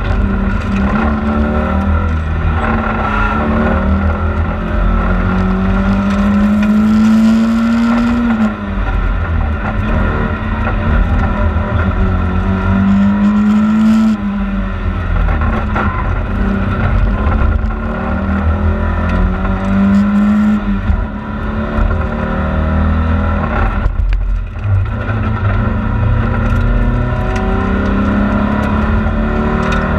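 In-car sound of a Volvo 940 rally car driven hard on asphalt: the engine note climbs steadily in pitch under acceleration, then drops away sharply, about four times, over a constant rumble of tyre and road noise.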